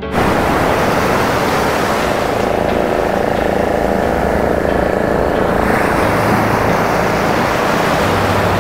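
Bay of Bengal surf breaking close by and washing up a sandy beach: a loud, steady rush of breaking waves and foam.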